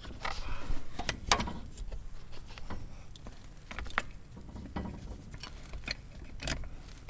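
Scattered light metallic clicks and clinks at an uneven pace, typical of a car jack and hand tools being handled, over a low rumble.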